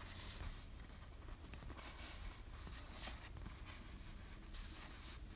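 Faint rustling and crinkling of a paper sticker sheet handled and flexed in the hands, over quiet room tone.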